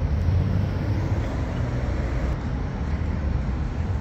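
Steady low background rumble with a faint hiss above it, with no distinct events.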